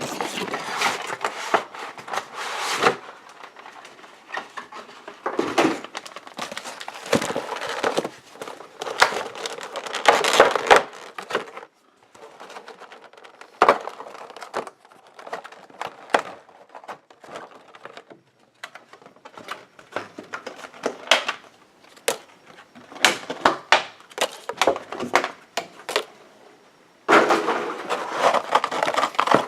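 A cardboard Pokémon card collection box and its packaging being handled and opened by hand: irregular rustles, scrapes and light knocks, with a denser stretch of rustling near the end.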